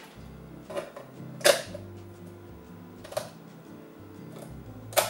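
Sharp plastic clicks of a Commodore cassette drive being handled as a tape goes into its cassette door and the lid is shut. There are four separate clicks, the loudest about a second and a half in.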